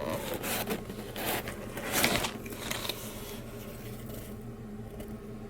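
Rustling and scraping handling noises in irregular bursts, loudest about two seconds in, dying away after about four seconds, over a faint steady low hum.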